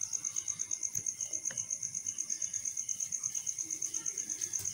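A cricket chirping steadily: a high, even pulsing trill of about ten pulses a second, with a couple of faint clicks.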